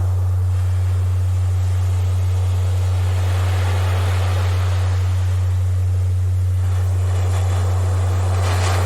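A steady low electronic tone, a Rife frequency tone, sounds throughout over ocean surf. The waves wash in and break in swells that build to a peak about four seconds in and again near the end.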